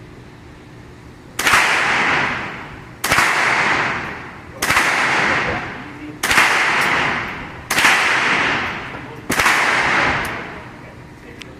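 Six gunshots fired at a steady pace, about one and a half seconds apart, each followed by a long fading echo.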